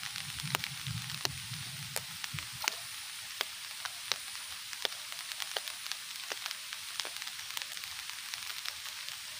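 Rain falling: a steady hiss with irregular sharp taps of drops scattered through it.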